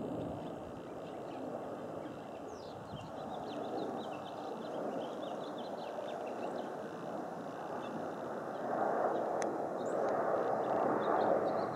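Faint, steady rumble of a twin-engine jet airliner at cruising altitude, swelling a little in the last few seconds. Faint bird chirps in the first half.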